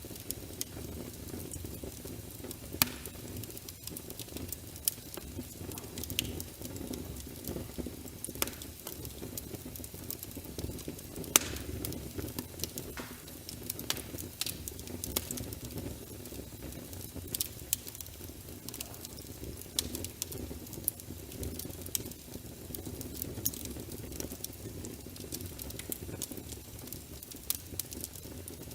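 Wood fire burning in a fireplace: a steady low rumble of flames with frequent sharp crackles and pops, a few of them much louder than the rest.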